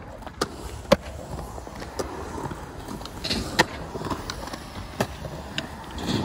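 Skateboards rolling over a concrete skatepark with a steady low rumble of the wheels, broken by about six sharp clacks of boards striking the ground, spaced irregularly; the loudest comes about a second in.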